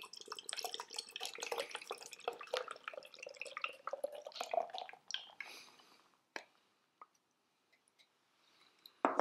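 Canned beer poured into a pint glass: gurgling and splashing for about five seconds as the glass fills, thinning to scattered drips as the can empties. A brief, louder knock comes near the end.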